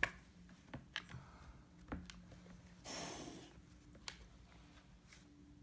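An adult tabby cat shut in a plastic pet carrier gives one short breathy hiss about three seconds in, a defensive warning at a kitten just outside the carrier. A few light clicks are heard around it.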